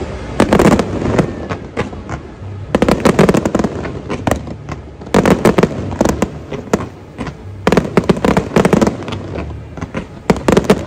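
Fireworks display going off: about five volleys of rapid sharp bangs and crackles, each lasting a second or so, with short lulls between.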